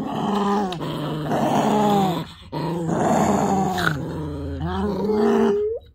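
Small dog growling and grumbling in long, wavering, pitched complaints, in three stretches with short breaks, ending in a rising whine-like note near the end: an annoyed, squabbling growl aimed at another dog.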